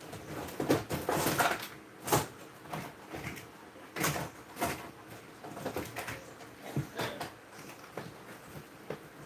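Irregular knocks, clicks and clatter of objects being handled, the loudest cluster about a second in and others around two and four seconds in.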